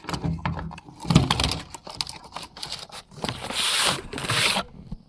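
Packaging of a TV antenna being opened and handled: a run of uneven scraping, rustling and tearing sounds with small clicks, the longest scrape about three and a half seconds in.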